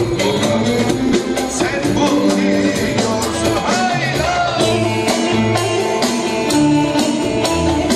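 Turkish arabesk band music played live: held melodic notes with wavering vibrato over a steady percussion beat.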